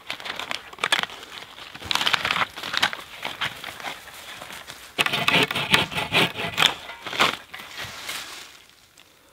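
Dry leaf litter crunching and rustling, with sharp cracks and knocks of wood as a peeled pole and logs are shifted. The noise comes in irregular bursts, busiest past the middle, then dies down near the end.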